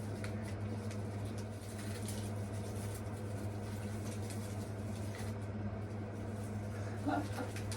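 A steady low mechanical hum, with a few faint ticks and a short pitched sound near the end.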